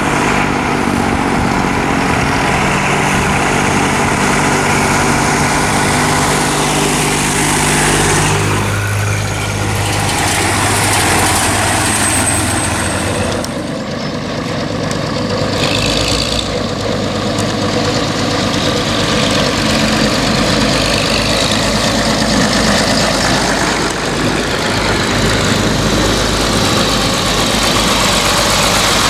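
Tractor engines running as tractors drive past one after another, a small red tractor and then a blue Ford tractor, the engine note shifting as each one goes by.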